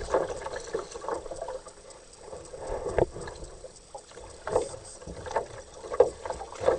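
Kayak paddle strokes in river water: irregular splashes and light knocks of the paddle, coming more often in the second half.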